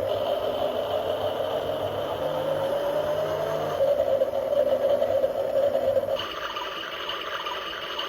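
Small motor of a mini toy washing machine running with a steady whir; about six seconds in its sound shifts to a higher pitch.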